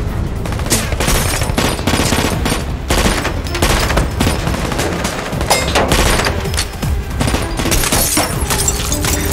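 Heavy rifle gunfire exchange: rapid, irregular shots and short bursts, with bullets hitting a car and spraying its window glass, over a steady low rumble.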